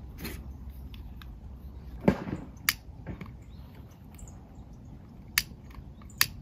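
Handling noise of objects at a metal box: one louder knock about two seconds in, then a few sharp clicks, over a low steady rumble.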